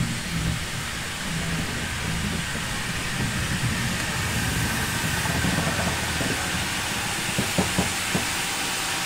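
LMS Jubilee class steam locomotive 45596 standing with steam hissing steadily, over a low rumble, with a few sharp knocks near the end.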